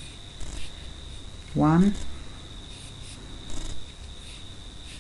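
A steady high-pitched trill runs throughout. About one and a half seconds in there is a short voiced sound from a person, and there is faint rustling from the yarn and crochet hook being worked.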